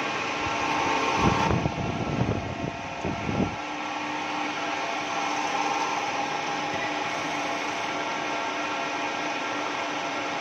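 CNC horizontal boring machine running: a steady mechanical hum and hiss with several steady tones. A few irregular low thumps come in the first three and a half seconds.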